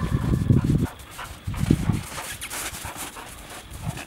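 Yellow Labrador retriever panting as it runs back through snow, with low rumbling thumps in the first second and again about a second and a half in.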